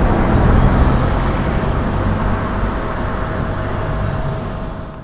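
Steady rumbling outdoor noise like road traffic, heaviest in the low end, easing off near the end and then cutting off abruptly.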